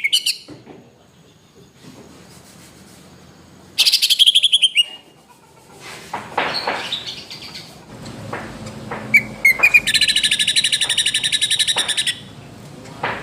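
Cucak ijo (greater green leafbird) singing: a fast rattling run of notes that slides downward, a few scattered chirps, then a dense, fast trill lasting about two seconds near the end.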